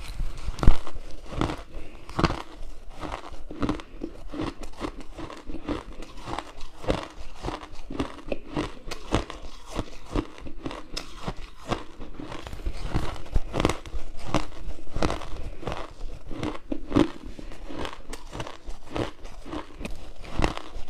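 Close-up crunching of ice as a person bites and chews it, a rapid irregular run of crisp crunches several times a second, with a louder bite about a second in.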